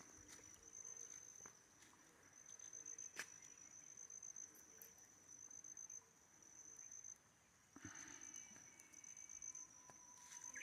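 Near silence with a faint, steady, high-pitched insect trill running throughout, and a few faint ticks.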